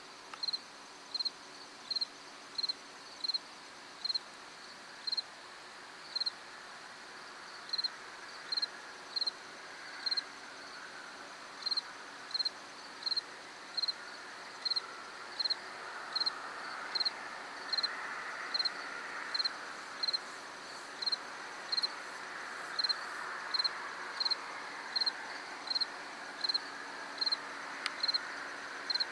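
A cricket chirping steadily, about one and a half short chirps a second, over a fainter steady trill of other insects. A faint distant rushing sound grows from about a third of the way in.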